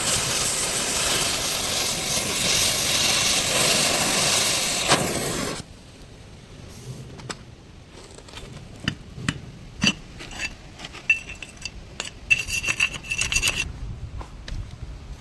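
Welding arc crackling and hissing steadily, then cutting off abruptly about five and a half seconds in. Scattered light metallic taps and scraping follow.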